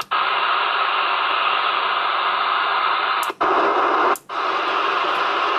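Steady receiver static hissing from a CB radio's speaker on an empty channel with the squelch open. It cuts out for a split second three times: near the start, just after three seconds in and around four seconds in, as the channel and front-panel knobs are turned.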